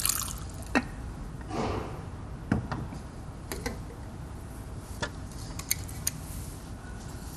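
Scattered light clicks and knocks of kitchenware being handled, glass measuring jugs set down and stove controls touched, with one short swish about one and a half seconds in; the loudest knock comes a little past two and a half seconds.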